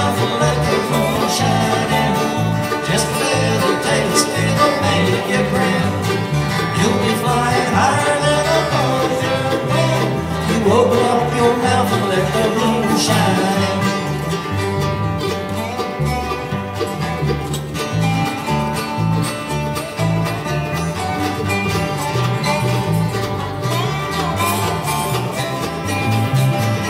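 Bluegrass band playing an instrumental break with banjo, dobro, acoustic guitar and mandolin, without vocals.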